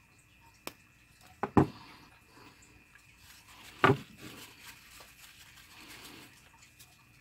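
A few sharp knocks as a small printed circuit board is handled and set down on a wooden workbench: a light click, a double knock about a second and a half in, and another knock near four seconds in.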